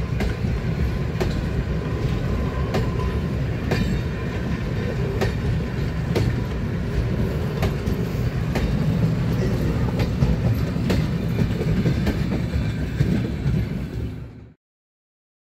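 Vintage passenger coaches of a museum train rolling past at low speed, a steady rumble with the wheels clicking over the rail joints every second or so. The sound cuts off abruptly near the end.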